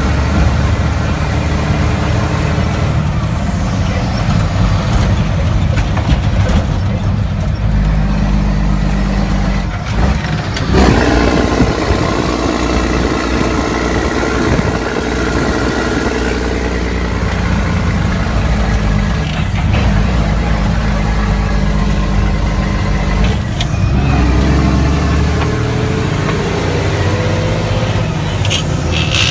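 Mack RD truck's diesel engine running steadily. Its note cuts out briefly about ten seconds in, comes back stronger, and rises in pitch later on.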